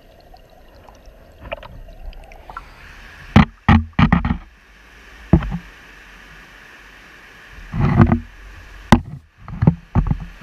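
Shallow river rapids rushing over rocks, heard right at the waterline: a muffled underwater rush at first, then a steady water hiss broken by a run of loud, irregular splashes close to the microphone.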